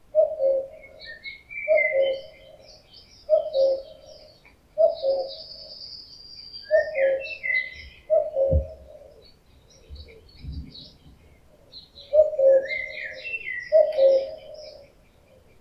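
Male common cuckoo giving its two-note falling 'cu-coo' mating call, about eight times at roughly one-and-a-half-second intervals, with a pause of a few seconds in the middle. Smaller songbirds sing higher-pitched behind it.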